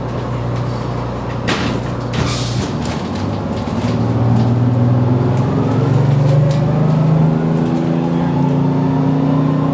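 Detroit Diesel 6V92TA two-stroke V6 in an MCI Classic coach, heard from inside the bus. It idles steadily, gives a short hiss of air about two seconds in, then climbs in pitch as the bus accelerates away, levelling off near the end.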